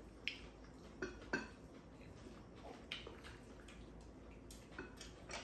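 Faint, scattered clinks and taps of a spoon and chopsticks against ceramic bowls as two people eat, about half a dozen small knocks spread over a few seconds.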